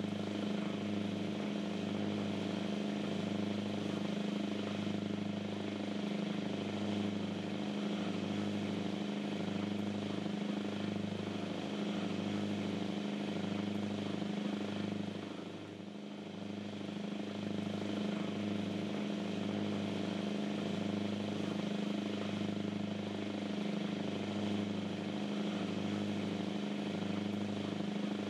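Cruise boat's engines running under way: a steady low drone with a slow, regular throb, easing off briefly a little past halfway.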